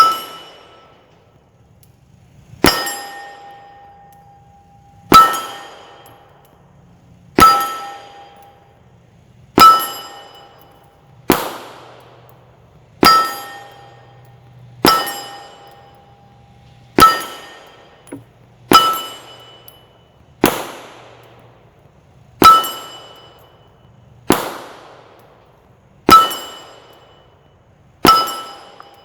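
Glock 17 Gen 5 9mm pistol fired at a slow, steady pace: about fifteen shots, roughly two seconds apart. Each shot is followed by a brief metallic ring, typical of a steel target being hit.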